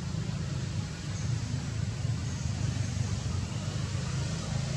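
Steady low rumble of outdoor background noise with a faint hiss above it.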